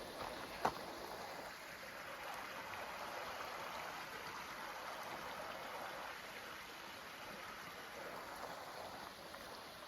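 A stream rushing with a steady hiss of flowing water. One sharp click comes a little over half a second in.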